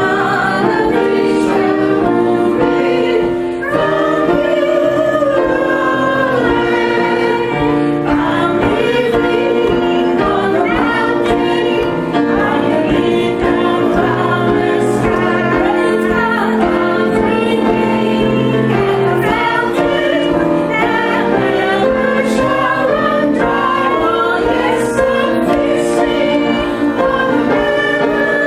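A church choir and congregation singing a hymn together, many voices held on long sustained notes.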